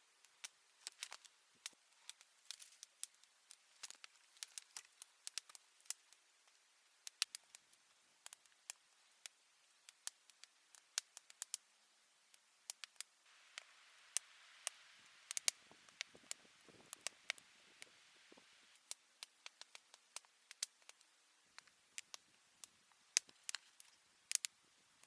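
Faint, irregular sharp clicks and crackles, several a second, with a soft hiss rising for a few seconds in the middle.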